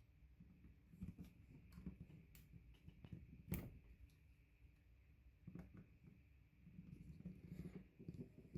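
Faint, scattered clicks and taps of network cable connections being handled and checked at a patch panel, with one sharper click about three and a half seconds in.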